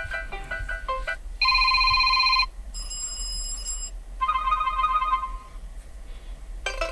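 Asus ZenFone 9 ringtone previews played one after another through the phone's speaker: about five short electronic ring patterns, each cut off after a second or so. The loudest is a steady electronic ring about a second and a half in, and a new melodic ringtone starts near the end.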